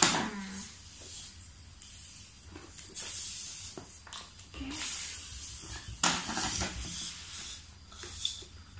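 Rubber balloons being handled and stretched by hand, giving short rustling, hissing bursts several times.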